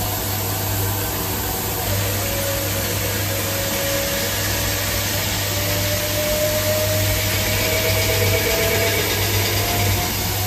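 Haas ST-20Y CNC lathe machining a steel pressure-pipe piece under flood coolant. The spindle and coolant spray give a steady hiss with a low hum, and a faint whine from the cut slowly rises in pitch through the middle.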